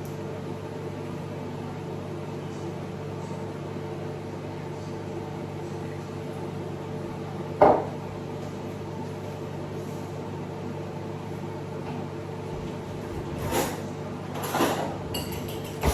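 Steady hum of a kitchen appliance motor, with one sharp knock about halfway through and a few shorter clatters of kitchenware near the end.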